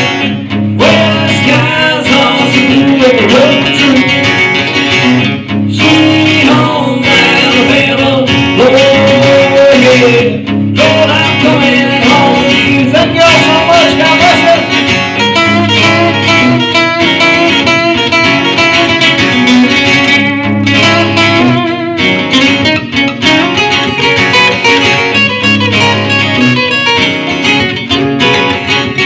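Live acoustic guitar music amplified through PA speakers, played continuously in a country style.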